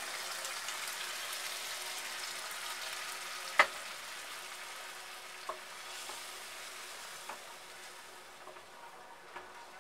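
Hot masala sizzling in a nonstick pan as boiled kidney beans and their cooking water are poured in, the sizzle gradually dying down. A wooden spoon stirring gives one sharp knock about three and a half seconds in and a few lighter taps after it.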